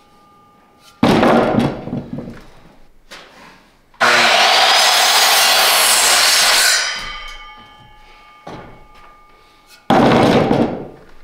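Power saw cutting through a wooden board for about three seconds midway. It is framed by two short, loud knocks, one about a second in and one near the end.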